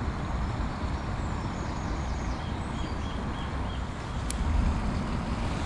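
Steady rushing noise of a small river's flowing water, with a low rumble underneath and a few faint bird chirps in the middle. A single light tick comes about four seconds in.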